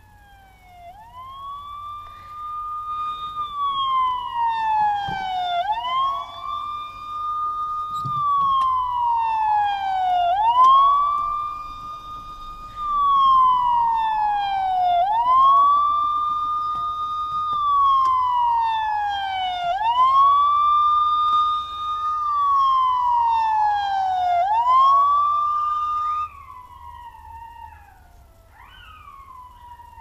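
Police-siren wail played through a smartphone speaker, rising and falling slowly about six times before it stops near the end. After it stops, fainter wavering howls follow, which fits coyotes answering the siren.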